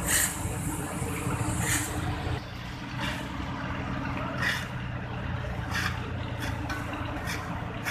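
Heavy truck traffic with engines running low and steady, and short hisses at irregular intervals.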